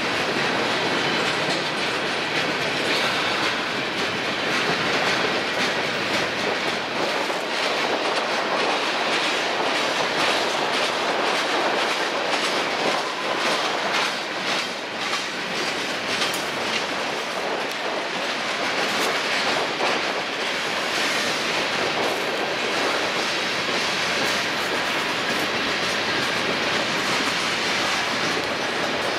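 Freight cars of a slow mixed freight train rolling past, a steady rolling noise from the wheels on the rail, with many sharp clicks of the wheels over the track.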